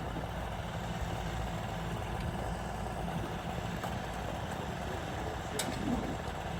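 Truck engine running steadily at a low rumble, with one sharp click about five and a half seconds in.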